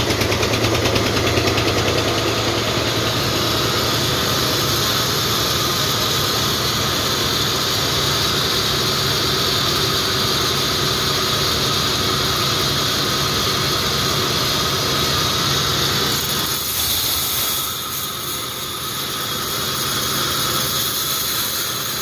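Large vertical band saw running and cutting through a big log, a steady machine drone with blade hiss. About three quarters of the way through, the low hum drops away and the sound thins.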